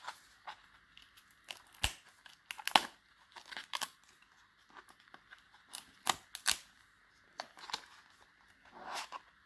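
Hands opening the retail packaging of a USB Type-C cable, tearing and crinkling it. Irregular sharp snaps and crackles come through, the loudest about three seconds in.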